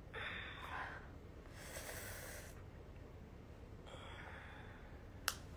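A woman breathing softly: three faint exhales, then a single sharp click near the end.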